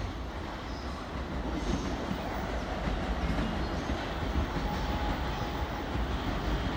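Electric commuter train moving along the platform: a steady low rumble of wheels on rail.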